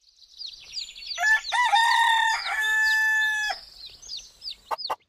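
Cartoon sound effect of a rooster crowing once, a long cock-a-doodle-doo that bends in pitch and then holds, over small birds chirping. Quick repeated chirping starts near the end.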